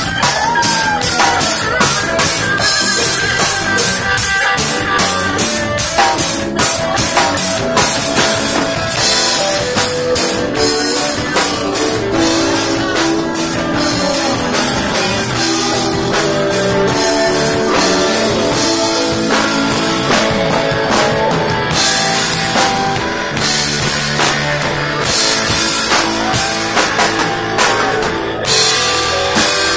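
Live rock band playing loudly: drum kit with a steady run of cymbal and drum hits, electric guitar and keyboard.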